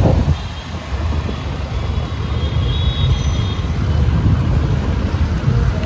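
Steady low rumble of road traffic, with vehicles running close by.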